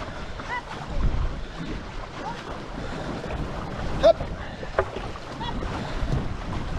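Water rushing and splashing around a two-person racing canoe under way, with wind buffeting the microphone as a low rumble. A brief high-pitched rising sound about four seconds in is the loudest moment.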